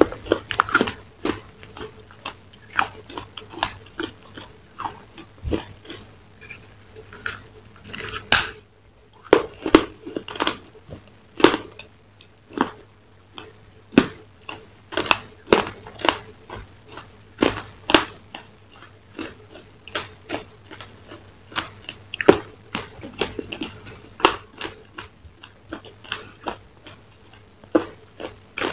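Close-up eating sounds: a person biting into and chewing a crunchy-coated dessert, with sharp, irregular crunches, sometimes several a second, and a brief lull about nine seconds in.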